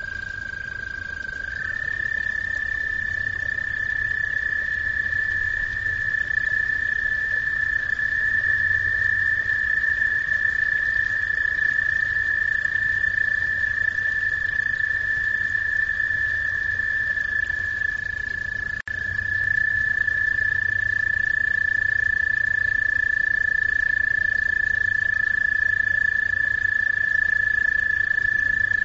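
Frogs calling at a backyard pond: one unbroken high trill, steady in pitch, stepping slightly higher about a second and a half in and dipping briefly about two-thirds of the way through.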